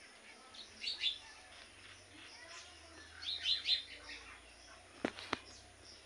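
Young Alexandrine parakeet giving two bursts of short, high chirping calls, one about a second in and a longer run around the middle. Two sharp clicks follow near the end.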